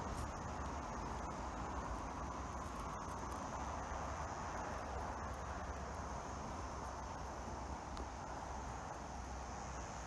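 Ko-ezo-zemi cicada (Lyristes bihamatus) buzzing in one steady, unbroken drone, with a low rumble underneath.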